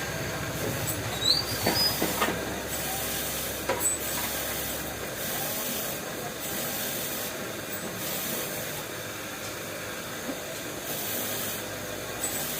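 A steady hiss, with a few light clicks in the first four seconds.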